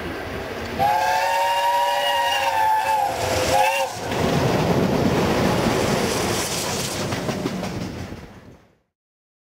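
Steam locomotive whistle blowing one long chord-like blast about a second in, then a short second toot. The locomotive and its coaches then rumble past below, and the sound cuts off near the end.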